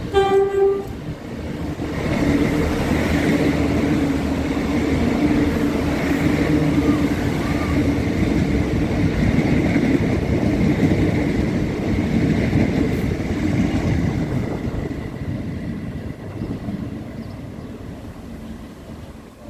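Irish Rail commuter train sounding one short horn toot, then running close past the platform with a steady rumble of wheels and running gear and a faint high whine, fading away over the last few seconds.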